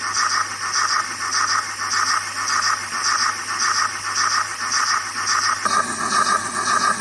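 Model steam locomotive running on a rolling road, making a steady rhythmic chuffing hiss about two to three beats a second, in time with its synchronised smoke puffs. Near the end the sound turns fuller and lower.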